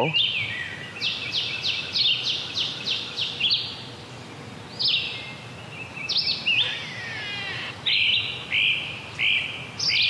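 Wild birds singing in the forest canopy: a red-eyed vireo giving short phrases with pauses between them, and a great crested flycatcher singing at the same time. About a second in comes a quick run of about nine repeated high notes.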